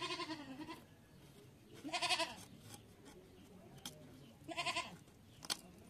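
A goat bleating three times, each call short and wavering, about two seconds apart, with a sharp click near the end.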